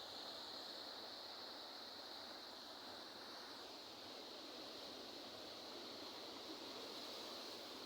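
Sea waves washing on the shore in a soft, even wash, with a steady high hiss above it.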